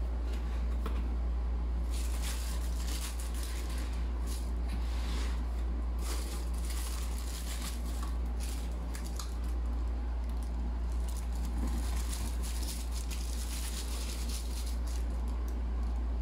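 Tissue paper crinkling and rustling in irregular bursts as it is folded back from a pair of sneakers in a cardboard shoe box, with the odd scrape of cardboard, over a steady low hum.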